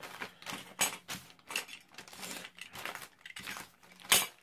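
Irregular crinkling and clicking of plastic packaging and hard plastic miniature figures being handled, with one sharp, louder click near the end.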